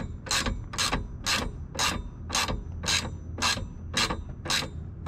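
Socket ratchet wrench tightening a bolt, its pawl clicking in short bursts on each back-swing, about two strokes a second.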